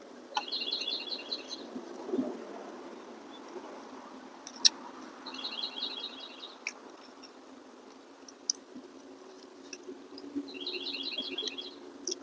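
A small songbird singing a short, fast trill of repeated notes three times, about five seconds apart. A few sharp clicks come in between, the loudest about four and a half seconds in.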